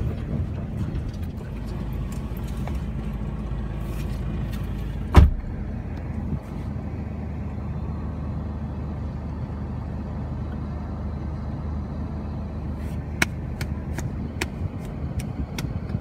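Four-wheel-drive vehicle's engine idling steadily after pulling up, with a single loud thump about five seconds in and a few light clicks near the end.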